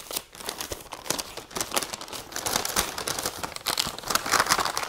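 Brown kraft-paper gift bag crinkling and rustling as it is opened by hand, a dense run of quick crackles that grows a little louder near the end.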